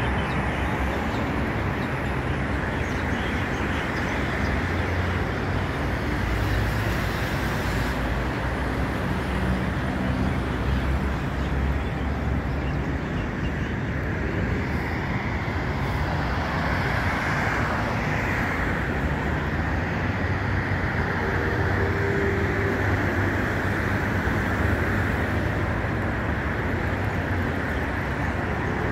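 Steady city road-traffic noise: a continuous rumble of passing cars, with one vehicle swelling briefly louder about halfway through.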